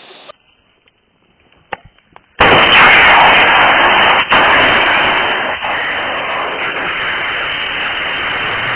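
A few faint pops, then a sudden loud burst as a 4S 5000 mAh lithium polymer battery pack vents. It goes on as a steady, loud rushing hiss of gas and smoke jetting out, slowly fading.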